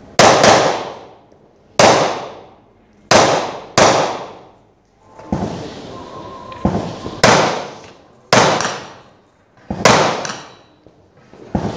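Carbine shots, each a sharp crack with a long echoing decay, fired singly and in quick pairs at uneven intervals, about ten in all, with a pause of about three seconds midway.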